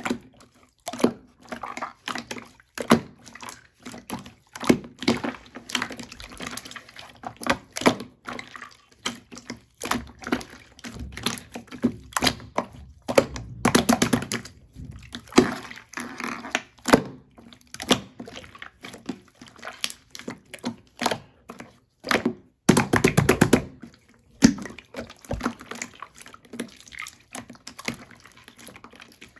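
Irregular knocks, taps and clatter of objects being handled, with some splashing water.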